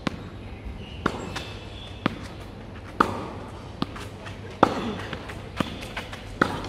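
Rackets hitting the tethered ball of a Yonex Ezon tennis trainer in a two-person forehand drill: a sharp pock about once a second. Lighter ball bounces and running footsteps on the rubber court fall between the hits.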